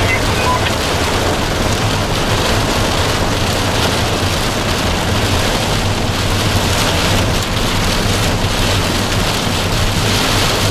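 Heavy rain pelting a car's roof and windscreen, heard from inside the cabin as a steady, dense hiss with a low hum underneath.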